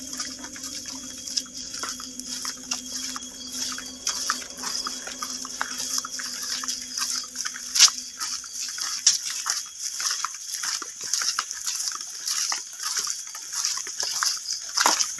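Footsteps and rustling of several people walking through undergrowth at night, with a steady high chirring of night insects behind. A low steady hum fades out about two-thirds of the way through.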